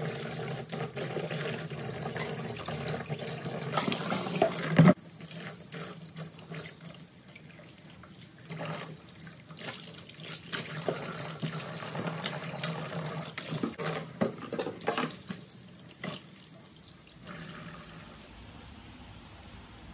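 Kitchen tap running into a plastic basin in a steel sink while hands splash and rub vegetables in the water. About five seconds in there is one loud knock, after which the running water is quieter and the splashing comes in irregular bursts. Near the end it gives way to a quieter steady hiss.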